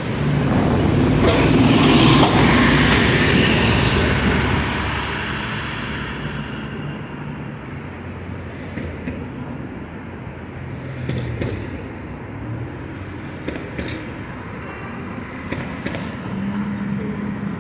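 New Flyer D40LF diesel city bus driving past close by, its engine loudest about two seconds in and fading over the next few seconds. Steady city traffic noise follows.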